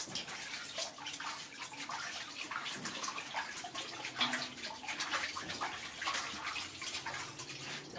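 Water splashing and sloshing in steel basins as a baby monkey is washed by hand, in many irregular small splashes. Sloshing from a monkey climbing into a larger basin of water joins in later on.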